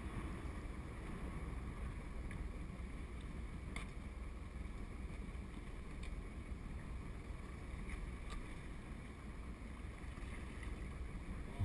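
Steady low rumble of wind and water around a small fishing boat on open water, with a few faint clicks.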